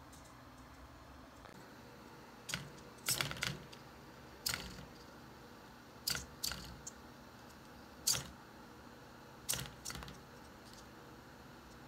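Hobby micro servos in a small 3D-printed desktop robot arm, whirring in about eight short bursts a second or two apart as the arm jerks from pose to pose.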